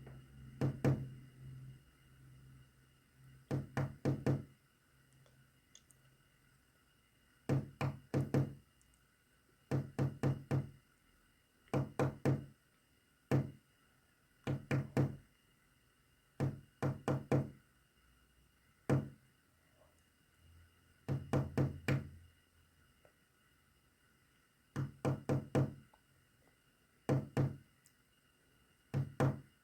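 Sharp knocks rapped out in about a dozen short groups, mostly two to four quick raps each, with pauses of a second or two between groups, tapping out a message in Morse code.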